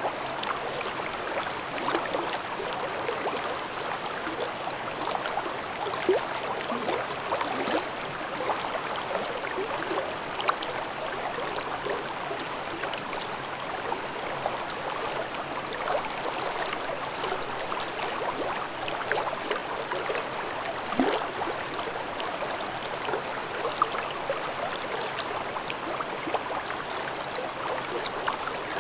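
Babbling mountain stream: a steady rush of water over rocks, full of small splashes and gurgles.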